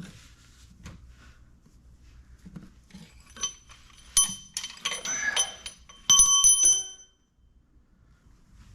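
Metal tools and engine parts clinking and clanking with a ringing tone while a cylinder head is worked off a 396 big-block Chevy engine. A handful of sharp metal strikes fall between about three and seven seconds in, with quiet shuffling before.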